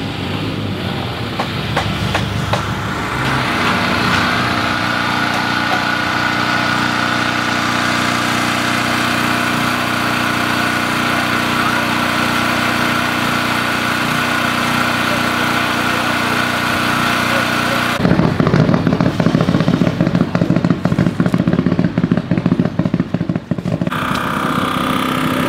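A portable generator's small engine running with a steady drone. About two-thirds of the way through it gives way to the rapid rattling hammer of an air impact wrench on a rally car's wheel, lasting some six seconds, before a steadier hum returns near the end.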